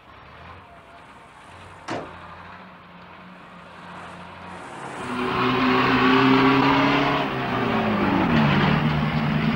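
A low engine hum with a sharp click about two seconds in. About five seconds in, a KrAZ-256B1 dump truck's V8 diesel engine comes in loud and pitched, and its pitch drops near the end.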